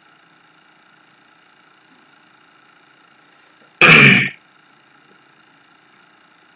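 A man clears his throat once, loudly and briefly, about four seconds in, over a faint steady hum.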